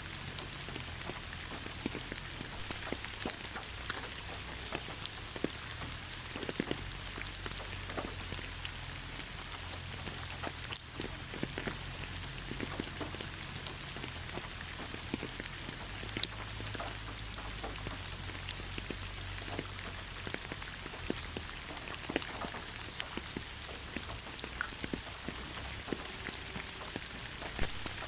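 Steady rainfall, with many separate drops ticking sharply on a hard surface at irregular moments over the hiss of the rain. A low, uneven rumble sits underneath.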